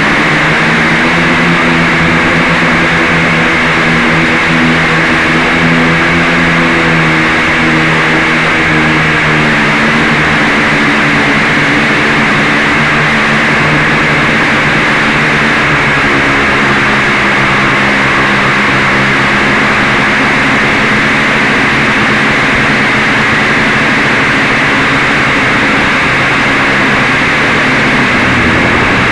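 A quadcopter's motors and propellers in flight, heard from its onboard camera: a loud, steady rushing of prop wash and wind over a buzzing motor hum. The hum shifts in pitch a few times as the throttle changes, and near the end it drops away.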